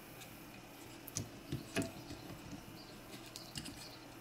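Light clicks and knocks of a circuit board being seated in a PCB holder and its clamp arm being worked by hand: a few scattered taps, the loudest between one and two seconds in.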